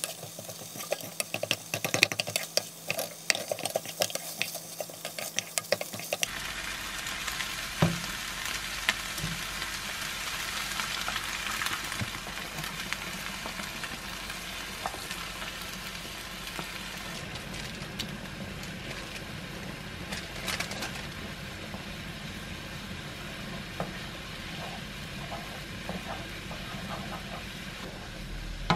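Seafood konjac fried rice sizzling in a frying pan, with a spatula stirring and clicking against the pan for about the first six seconds. After that a steadier sizzle as milk is poured in and the rice simmers.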